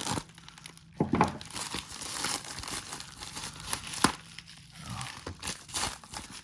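Plastic packaging being handled and torn open: irregular crinkling and rustling, with sharper tearing crackles about a second in and about four seconds in.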